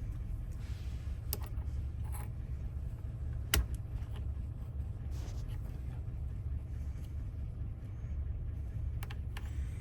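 A few small sharp clicks of lock parts being handled and set down over a steady low hum, the sharpest click about three and a half seconds in.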